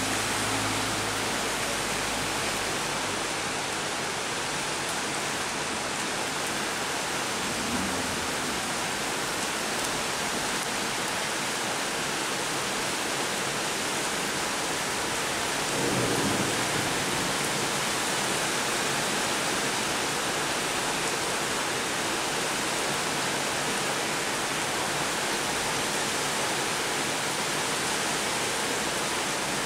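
Heavy rain pelting a flooded street, a steady hiss of drops hitting standing water. A car driving through the flood water fades out in the first second, and a short low rumble comes about halfway through.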